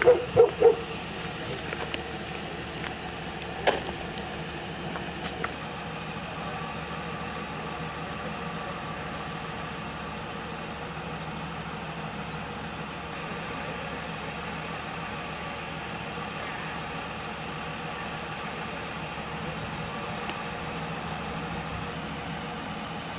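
A vehicle engine idling steadily. There are three short loud sounds in the first second and a single sharp knock about four seconds in.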